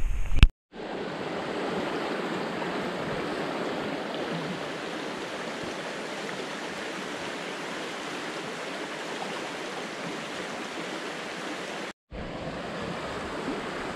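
A fast creek rushing steadily over rocks. It is preceded by a brief loud rumble on the microphone that cuts off abruptly, and there is a split-second gap about twelve seconds in.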